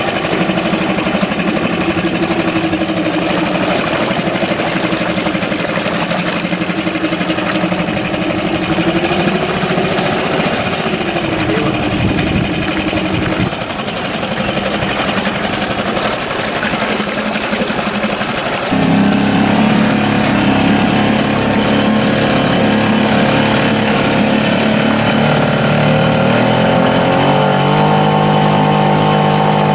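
APOKOTOS 6 hp four-stroke outboard running in a test barrel of fresh water. It idles steadily at first. About two-thirds of the way through, the engine note changes suddenly and gets louder as it goes into gear and the propeller churns the water, and the revs rise near the end.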